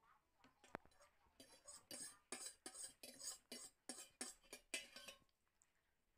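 A spoon and fork scraping and clinking against a metal bowl while scooping noodles: one sharp clink about a second in, then a run of quick short scrapes, about three a second, that stop about five seconds in.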